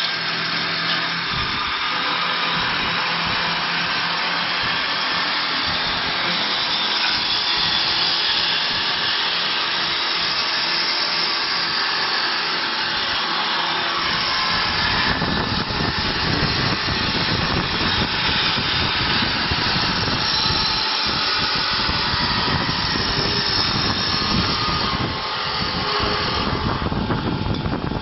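High-speed wood lathe running, its cutter shaving a spinning wooden workpiece with a steady hiss over the motor's hum. About halfway through the sound turns rougher, with more rumble.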